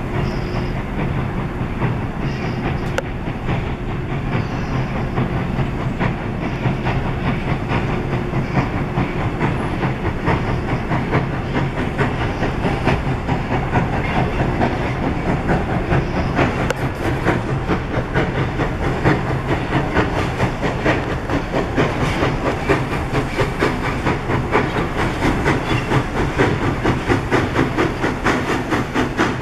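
CNJ 113, an Alco 0-6-0 steam locomotive, working along under steam, a fast rhythmic chuffing with hiss, growing a little louder and more even in the second half.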